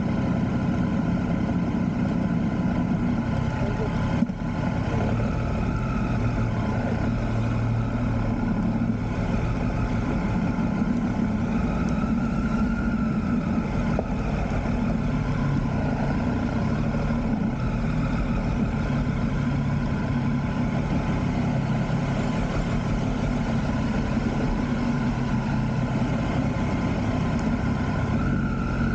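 Triumph Street Triple RS inline three-cylinder engine idling and running at low speed with a steady, even sound and no hard revving.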